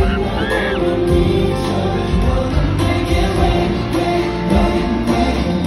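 Live K-pop song played through a concert PA, with a man singing into a handheld microphone over the backing track.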